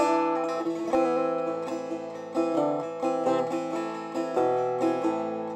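Background music on a plucked string instrument: single plucked notes of a melody, each ringing and fading, with the strongest strokes at the start and about a second in.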